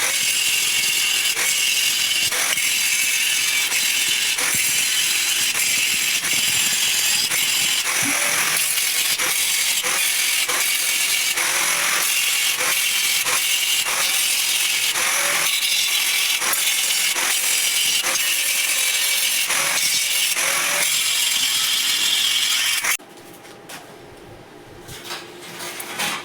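Electric arc welding: a steady crackling, sputtering hiss full of pops that stops abruptly near the end.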